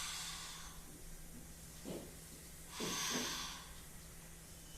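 Long breathy, whispered "haaa" exhalations, the Tai Chi healing sound for the heart, made twice: one at the start and another about three seconds in.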